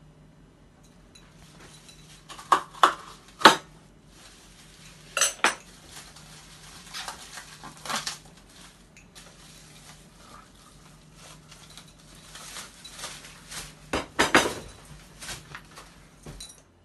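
Kitchen knife clicking and knocking against a plastic-wrapped pizza and the countertop, in irregular clusters of sharp clinks.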